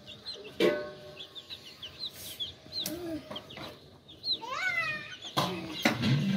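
Young pullet chicks peeping: many short, high chirps repeated over and over. A few louder knocks cut in, and a stepped call rises and falls about two-thirds of the way through.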